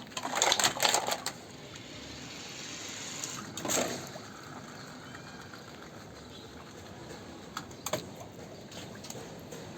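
Water splashing in the first second, then trickling steadily as plastic toy vehicles are washed, with another splash about four seconds in and a couple of light knocks near the end.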